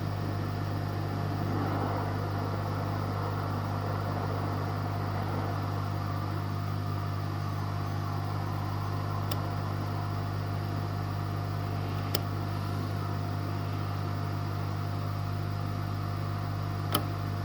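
Steady electrical hum with a constant fan-like whoosh from workbench equipment, and a few faint clicks.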